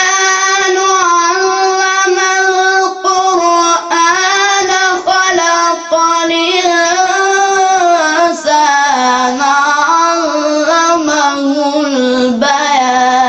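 A young boy's voice chanting a religious text in long, melodic held notes with ornamented turns. The pitch drops lower a little past the middle.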